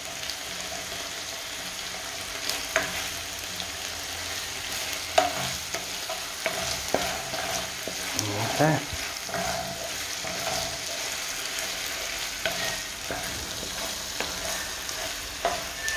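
Minced meat, onion and rice mixture sizzling steadily in oil in a nonstick frying pan over low heat, stirred with a wooden spatula that scrapes and knocks against the pan now and then.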